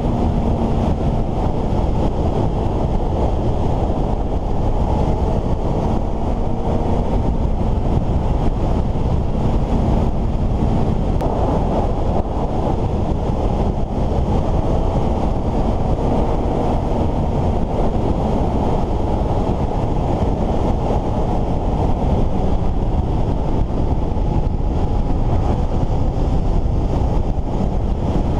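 Steady wind rush on the microphone of a motorcycle at road speed, with the Suzuki GSX-S750's inline-four engine running underneath as a faint hum that rises and falls.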